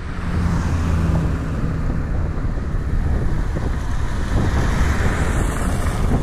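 Wind rushing over the microphone of a camera riding on a moving bicycle, a steady low rumble with hiss on wet road. A low steady hum fades out after about two seconds.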